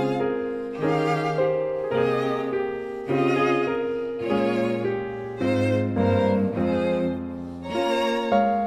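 Instrumental music led by bowed strings: a violin playing a sustained melody with vibrato over lower string chords. New notes come in about once a second.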